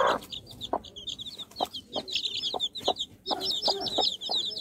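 Young chicks peeping without pause in quick, high, short calls, with the mother hen's short low clucks cutting in every half second or so, coming closer together in the second half.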